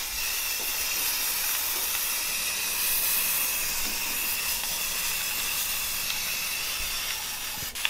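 Aerosol spray-paint can spraying in one long steady hiss, with a thin whistle in it, that cuts off near the end.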